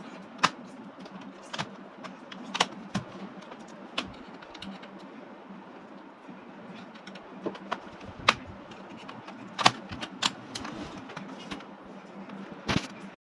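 Plastic snap clips of a Dell Inspiron 15 3000 laptop's base cover clicking as the case is pried open: about a dozen sharp, irregular clicks over a steady low hum.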